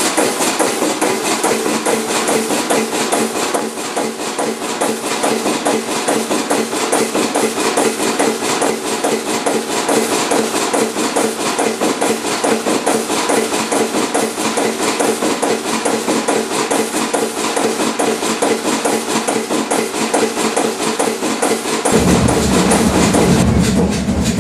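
Old Kromhout 2H3 marine diesel engine running steadily with a rapid mechanical knocking beat. About 22 seconds in, the sound suddenly turns deeper and slightly louder.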